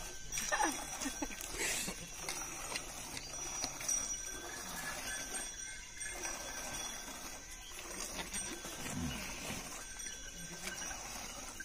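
Goats bleating: a few calls near the start and one call falling in pitch about nine seconds in.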